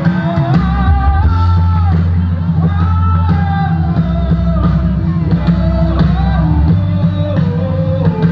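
Live gospel band music played loud through the stage PA, with a singer holding long sung notes over a heavy bass.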